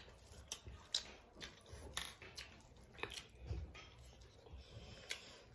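Two people eating rice and fish curry by hand: faint chewing and wet mouth smacks, with soft squishing as fingers mix the rice on metal plates, and small clicks every second or so.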